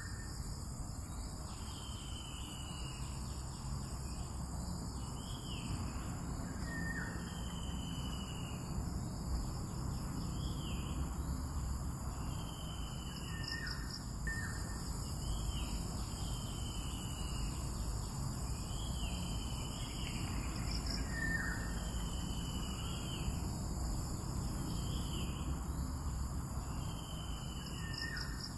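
Outdoor ambience: a steady high drone of insects, with a bird calling over and over, a short gliding call about once a second.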